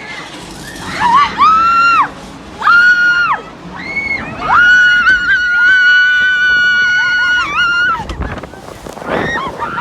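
Riders screaming on a roller coaster: several high-pitched screams, one held for about three seconds near the middle, over wind rushing past the microphone.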